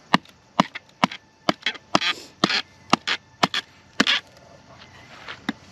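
A fixed-blade knife being batoned through firewood to split kindling: a wooden stick knocks sharply on the knife's spine about twice a second. A few of the strikes are longer and noisier, and the knocking thins out after about four seconds.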